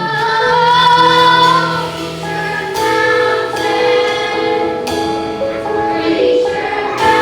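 A group of voices singing a song with musical accompaniment, holding long notes.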